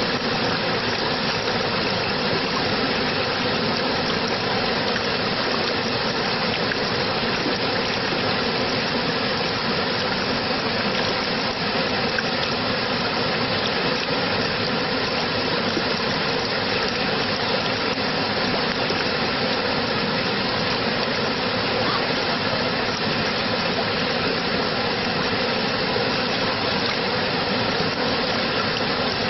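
Steady rushing water, an even, unbroken noise that does not change over the whole stretch.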